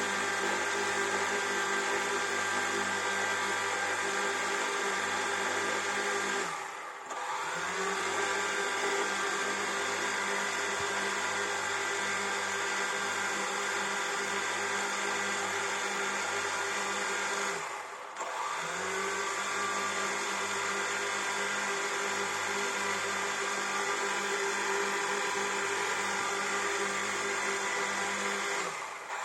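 Quadcopter drone's electric motors and propellers whirring steadily in a whine of several tones. The whine briefly dips in pitch and level about seven seconds in, again about eighteen seconds in, and once more at the end, each time rising back up.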